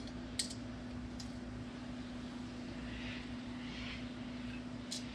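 Metal tongs clicking a few times against a plate as food is served, over a steady low hum.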